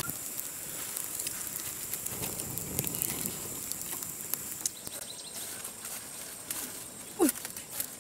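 Open wood fire crackling with many small sharp pops over a steady hiss, heating a fish cooking inside a hollowed jackfruit. Near the end there is a brief sound that slides downward in pitch.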